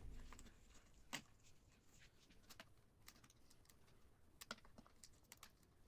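Faint, scattered small clicks and taps of hands working on a TV's LED panel and its plastic frame, with the sharpest click about a second in.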